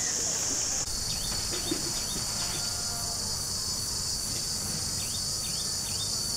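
Steady high-pitched insect chorus droning on, changing character abruptly just under a second in. Twice, a run of three or four short swooping chirps sounds over it.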